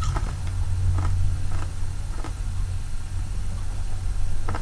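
Mouth chewing, with a few short crisp crunches of a cracker being eaten, over a steady low hum.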